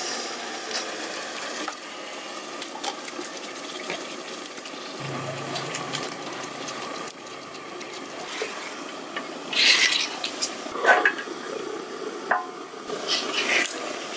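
Raw chicken pieces handled and dropped into an aluminium cooking pot: soft wet slaps and light clatter against the metal, with a few louder scrapes about ten and eleven seconds in.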